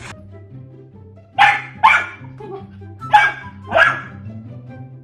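A dog barking four times, in two pairs of barks, over background music with a steady bass line.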